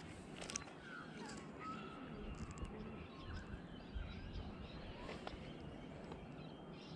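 Faint outdoor calm with birds calling, a scatter of short chirps and calls, and a few light clicks.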